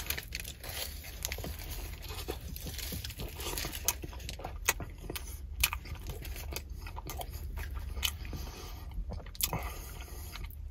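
Close-up chewing of a poutine beef dip sandwich: soft bun, shaved beef, cheese curds, gravy and curly fries. The mouth makes many short sharp clicks and smacks, scattered unevenly, over a low steady hum.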